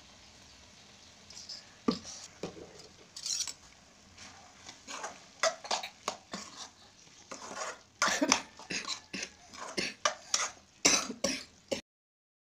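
Spoon scraping and clinking against a metal kadai while soyabean roast is stirred, in irregular strokes that start about a second and a half in and cut off suddenly near the end.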